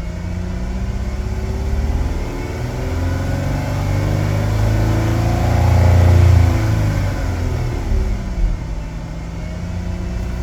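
2011 Dodge Journey's 2.7-litre V6 engine revved once, its pitch climbing over about four seconds to a peak and then falling back to idle. The engine is warm and holding normal temperature after a new thermostat.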